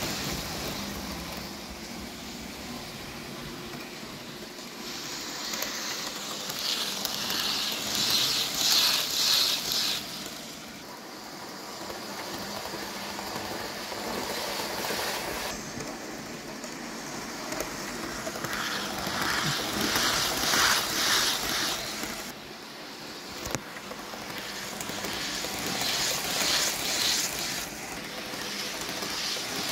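Hornby class 390 Pendolino model train running laps of a layout, its wheels clattering rapidly over the track and its motor running. The sound swells three times as the train passes close, then fades as it goes round the far side.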